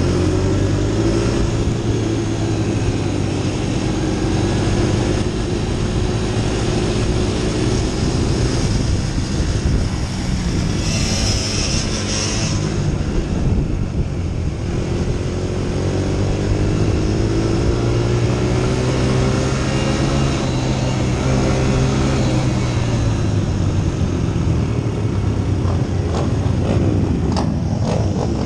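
Youth racing quad's engine running hard, heard from a camera mounted on the machine, its pitch rising and falling with the throttle through the straights and turns. A brief burst of hiss comes about 11 seconds in.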